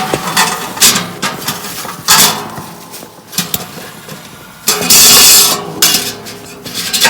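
Clinks and knocks of metal camp cookware or gear being handled, several separate strikes. About five seconds in comes a loud rushing noise lasting about a second.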